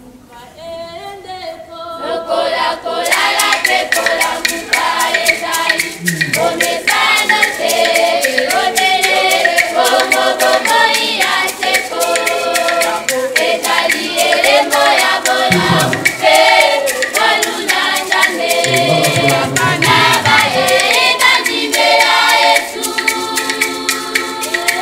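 A group of young women singing together as a choir, with a pair of maracas shaking a steady fast rhythm. The singing swells in from quiet about two seconds in.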